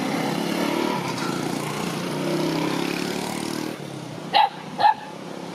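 A motor vehicle engine running steadily, which cuts out about three and a half seconds in. Then a puppy gives two short, sharp yaps about half a second apart.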